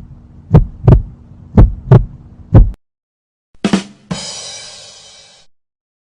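Heartbeat sound effect: paired low thumps, lub-dub, about once a second over a steady hum, stopping about three seconds in. Then a sharp hit and a bright ringing crash that fades away over about a second and a half.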